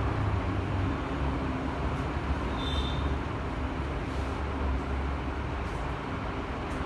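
Steady low rumble of background noise with no speech, and a brief faint high-pitched tone about two and a half seconds in.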